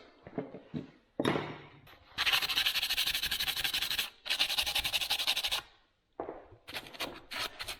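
Hand scrubbing or rasping back and forth on the metal of a bench vise. There is a fast, dense run of strokes for about three seconds, then after a short pause a series of separate strokes, several a second.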